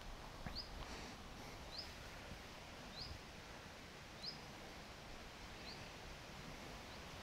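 A bird calling over and over, one short rising chirp a little more than once a second, faint against a low outdoor background hum.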